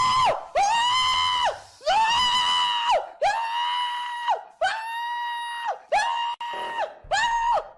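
A high-pitched voice screaming in about seven long, steady-pitched cries, each about a second long and separated by short breaks.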